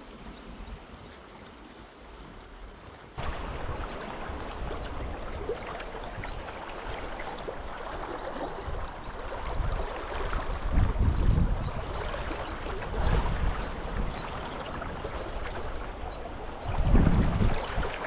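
Rushing river water with gusts of wind buffeting the microphone. The water sound jumps abruptly louder and brighter about three seconds in.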